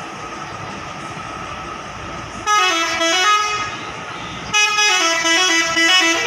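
Indonesian bus 'telolet' horn, a multi-tone musical horn, playing a quick tune of stepping notes: a short phrase about two and a half seconds in, then a longer one from about four and a half seconds on, over steady background noise.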